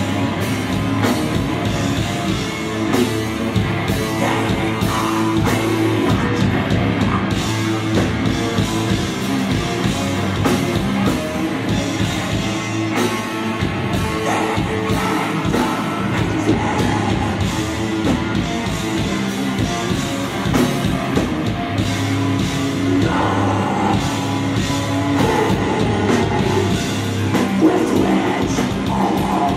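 Heavy metal band playing live and loud: electric guitar, drum kit and a vocalist singing into a microphone.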